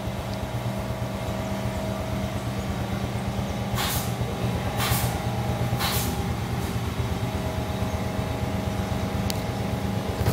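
Honda Biz 125's single-cylinder four-stroke engine idling steadily in neutral with an even, fast firing pulse. Three short hiss-like noises come about a second apart near the middle.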